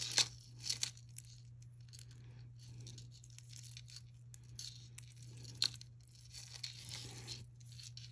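Crinkly rustling and scattered light clicks as beaded jewelry is handled and sorted, over a faint steady low hum.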